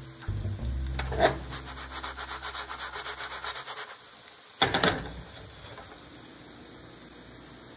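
A spatula scraping across a non-stick frying pan in a short loud flurry about halfway through, as a pan-fried lion's mane cake is turned, over a faint sizzle of frying.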